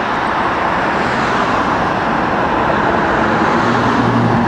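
Road traffic noise: a steady hiss of passing cars. A low engine hum from a nearby vehicle comes in about three seconds in and grows louder near the end.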